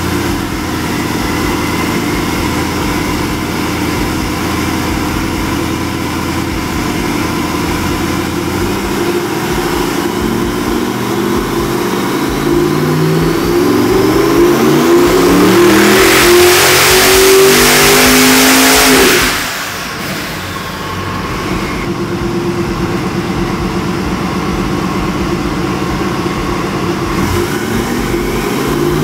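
Twin-turbocharged 427 cubic-inch small-block Chevrolet V8 running on an engine dyno. From about a third of the way in, the revs climb under load and the engine gets louder, with a rushing hiss over the top at its peak. About two-thirds in the throttle is cut suddenly and the engine drops back to a lower steady run, then begins to rise again near the end.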